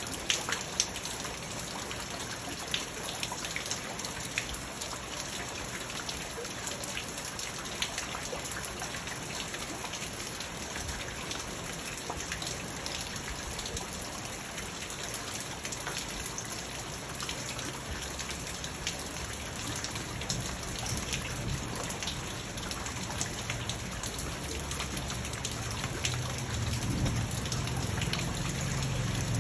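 Steady rain falling on a garden pond and its rocks: an even hiss with many small drop ticks. A low rumble builds in under it near the end.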